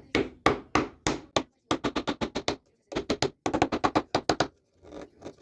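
A rapid series of sharp knocks, coming in quick bursts with short pauses between them.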